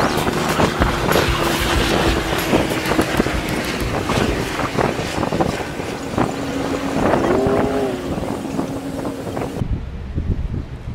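Outdoor ambience dominated by wind buffeting the camera microphone: a fluctuating low rumble with scattered knocks and a steady low hum. About seven seconds in comes a brief pitched sound that rises and falls. The high hiss cuts off suddenly near the end.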